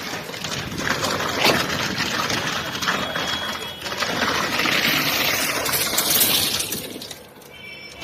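Concrete pump at work, with a rushing, splashing noise of wet concrete and a few sharp clicks. A louder hissing rush comes about five seconds in and fades near the end.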